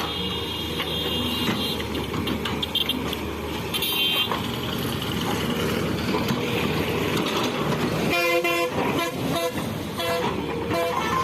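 Excavator's diesel engine running steadily at a worksite. A vehicle horn sounds in short, repeated honks about eight to nine and a half seconds in.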